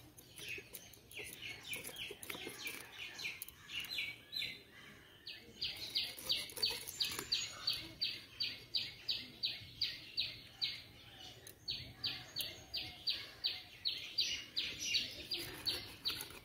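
Hilsa fish being scaled by scraping it against a bonti's curved blade: a steady run of short rasping strokes, about three a second. The strokes are lighter at first, grow louder, and pause briefly about two-thirds of the way through.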